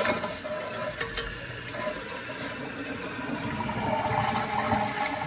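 Toilet flushing: the tank water rushes out under the lifted flapper and keeps running steadily. The newly fitted metal handle and lift arm are working the flush.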